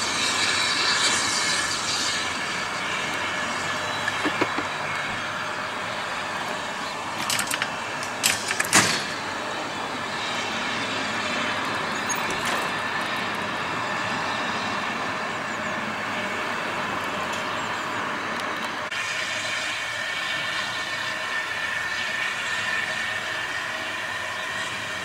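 Steam-hauled passenger train pulling away over the track: steady running noise of the locomotive and coaches, with a few sharp clicks about eight seconds in.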